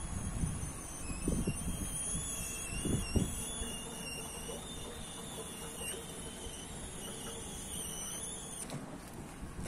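Semi-electric walkie pallet stacker in use. A few low knocks and rattles come over the first three seconds, then a faint steady mechanical hum and whine from the mast and lift gear.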